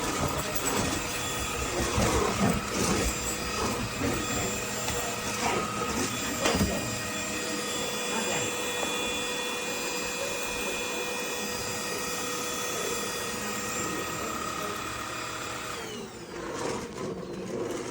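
Bieiao cordless stick vacuum running steadily, its motor giving a held whine, with scattered knocks and rubbing over the first several seconds; the motor sound drops away about sixteen seconds in.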